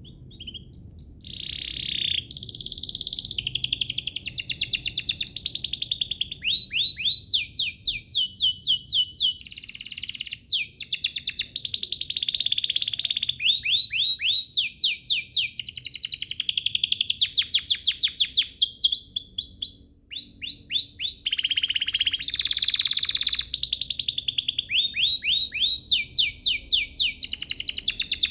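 Domestic canary singing a long, continuous high-pitched song made of runs of fast, rapidly repeated descending notes (rolls and trills). The song starts about a second in and breaks off briefly once about two-thirds of the way through.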